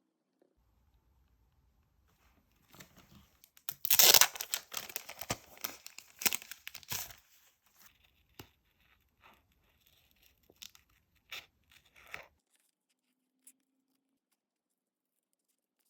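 Paper tearing in a quick run of rips, loudest about four seconds in, followed by several seconds of light paper rustling and small taps.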